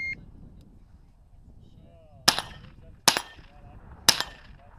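A short electronic beep from the shot timer right at the start, then three semi-automatic pistol shots about a second apart, beginning a little over two seconds in.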